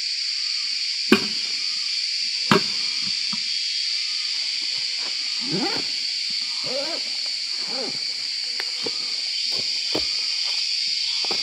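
Steady high-pitched drone of forest insects, with two sharp knocks about a second and two and a half seconds in, and rustling and light knocks as a backpack and a bag are hung on wooden pegs on a tree trunk.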